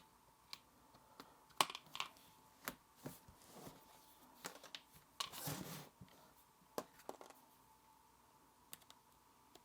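Light handling clicks and rustling as the power bank's built-in Lightning cable is pulled out of its slot and plugged into a device: a dozen or so sharp little clicks spread out, with a longer rustle about five seconds in.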